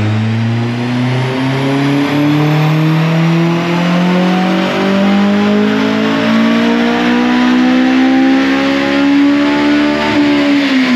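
Honda S2000's 2.0-litre four-cylinder engine doing a full-throttle dyno pull through an M2 Motorsport cat-back exhaust with its baffles fitted. The note rises steadily in pitch as the revs climb, then the revs drop away near the end.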